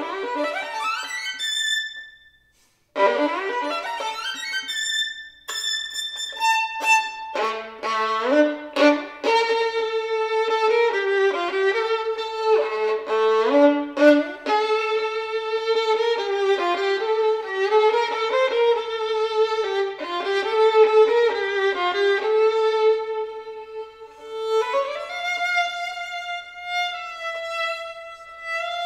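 Solo violin playing a classical piece, unaccompanied: a quick rising run, a short break about two and a half seconds in, then a busy passage of fast notes and chords, settling into longer held notes near the end.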